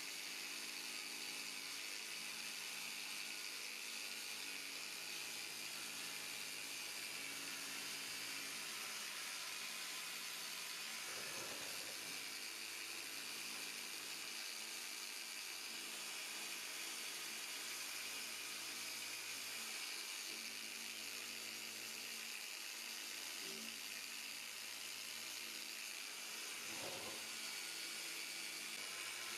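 Small corded power tool with a round pad running steadily against a plastic headlight lens: a constant motor hum with an even hiss, broken by two brief knocks, one about a third of the way in and one near the end.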